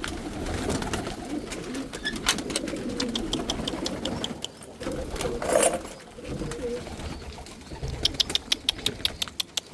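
Domestic pigeons cooing in a loft, with scattered sharp clicks and a quick run of clicks near the end.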